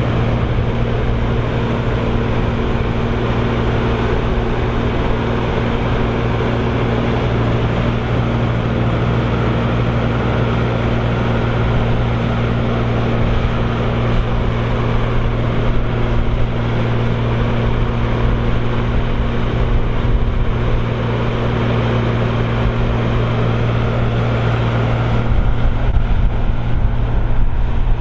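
Krone BigX 700 self-propelled forage harvester running hard under load while chopping maize, a steady deep engine drone. Near the end it turns deeper and slightly louder.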